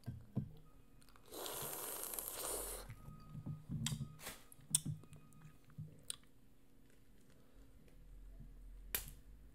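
Boiled crawfish being eaten: several sharp cracks as the shell is broken and peeled by hand, with chewing in between. A hiss of about a second and a half starts about a second in.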